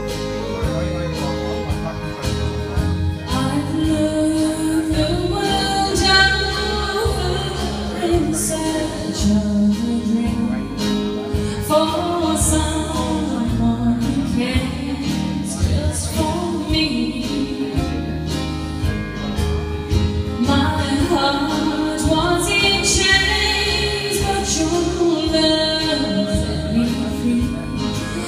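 A woman singing a country song live into a microphone over instrumental backing with a steady pulse.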